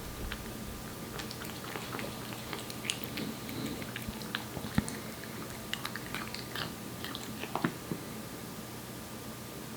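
A Korean shorthair cat eating wet cat food, with irregular wet smacking and chewing clicks that thin out near the end.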